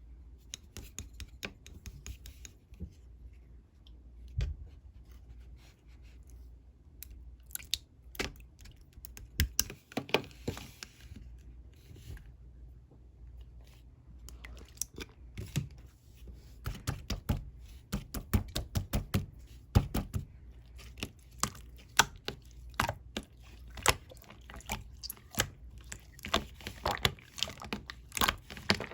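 Clear slime being squished and stretched by hand, giving sticky clicks and pops that come sparsely at first and much more densely from about halfway through.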